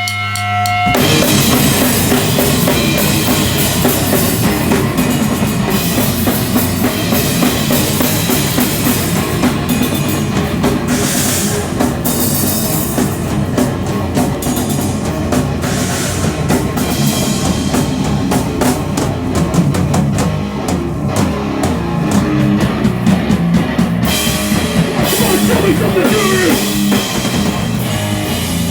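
Loud live rock band playing a song, drum kit, guitars and bass together, kicking in about a second in.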